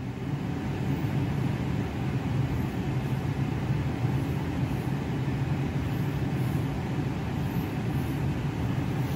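Steady low mechanical hum with a rush of air: the furnace's blower still running while the furnace cycles down.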